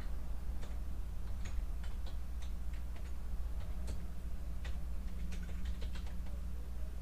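Computer keyboard keys clicking in an irregular run of keystrokes as code is typed, over a steady low hum.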